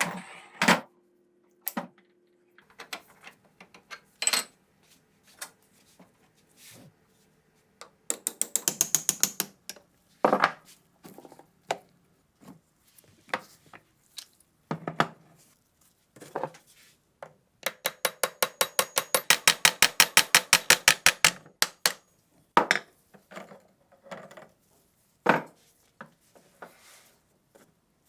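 Metal hand-tool work on MG3 machine gun parts: scattered knocks and clinks, with two runs of rapid ratchet clicking, about ten clicks a second. The first run is short, a little over a quarter of the way in. The second lasts about four seconds, past the middle.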